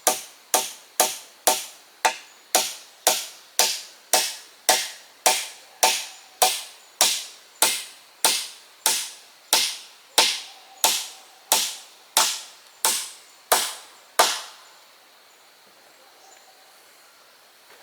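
A hand tool striking wood in a steady rhythm, about two sharp blows a second, which stop about fourteen seconds in.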